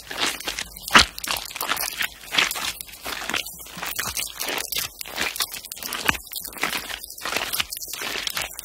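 Close-miked paper being crinkled and picked at by fingertips: a dense, irregular run of crackles and crunches.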